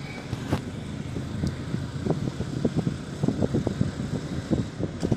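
A car driving along a hill road, heard from inside, with steady road noise and wind buffeting the phone microphone in irregular low gusts that grow stronger and more frequent about two seconds in.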